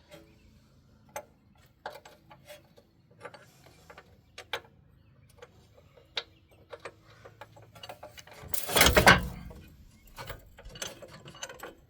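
Metal hand tools and bolts being handled at a wheel hub: scattered sharp clicks and ticks, with one louder clatter lasting under a second about nine seconds in.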